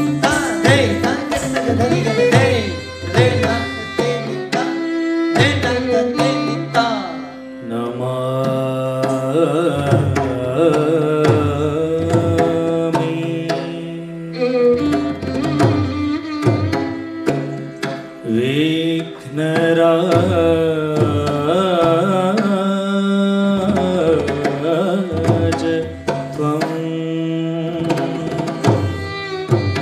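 Odissi dance music: a barrel drum playing a steady run of strokes under a sung melody and held drone notes. The singing comes in phrases with wavering, gliding pitch, and the drumming is densest at the start and near the end.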